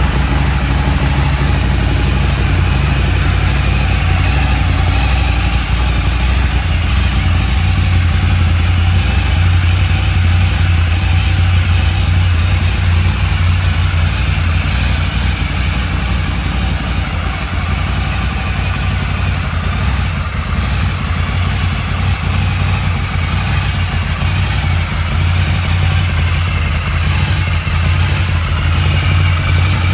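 Ducati Scrambler 800's 803cc V-twin idling steadily through its standard shotgun exhaust, just after being started.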